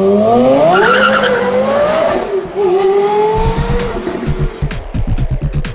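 Car engine accelerating, its pitch rising, easing back about two and a half seconds in and climbing again. Electronic dance music with a steady thumping beat comes in about three and a half seconds in.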